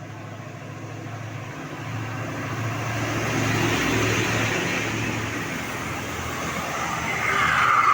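Road traffic on a rain-wet road: tyres hissing, swelling as vehicles approach, over a low engine hum, loudest about halfway through and again near the end.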